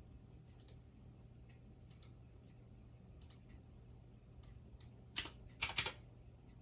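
Computer mouse clicks and keyboard keystrokes: scattered single clicks, then a louder quick run of keystrokes about five and a half seconds in, over a faint steady hum.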